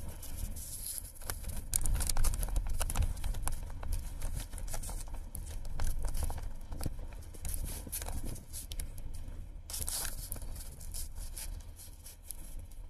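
Horse hooves clip-clopping on pavement as a kalesa horse walks along, irregular sharp knocks over a low steady rumble.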